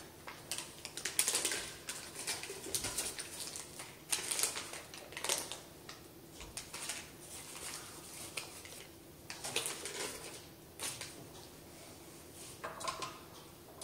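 Paper butter wrappers being peeled and handled: irregular crinkling and rustling with light taps and clicks.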